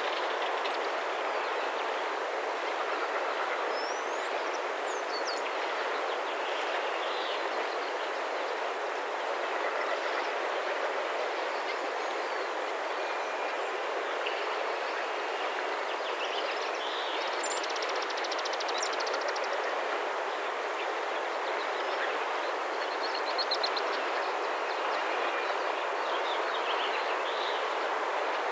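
Steady rushing background noise with no pitch or rhythm, with a few faint high chirps and two brief trills over it.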